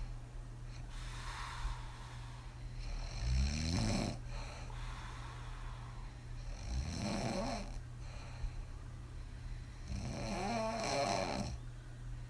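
A woman snoring hard on her back with her mouth open after several drinks. There are three rasping snores about three and a half seconds apart, with an airy breath before the first.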